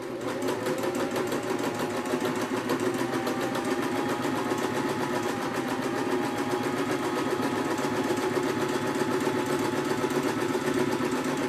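Domestic electric sewing machine running at a steady speed, stitching a seam through folded fabric: a constant motor hum under a fast, even needle beat.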